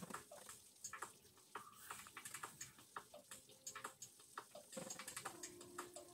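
Faint, irregular clicking and crackling of eggshell as hard-boiled eggs are cracked and peeled by hand, with a thin stream of tap water running into the sink.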